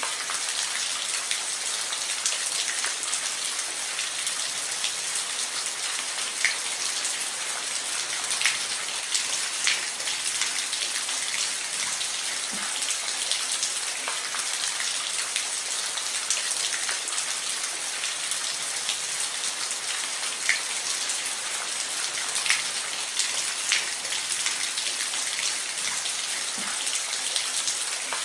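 Steady rain falling on a roof: an even hiss with scattered single drops ticking louder now and then.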